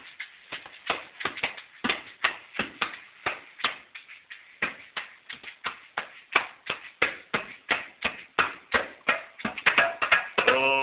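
A small djembe hand drum beaten with bare hands in a quick, uneven rhythm of about four or five strikes a second. A voice begins singing right at the end.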